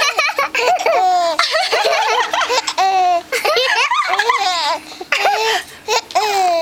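Baby laughing in repeated high-pitched bursts, with a few brief breaks for breath.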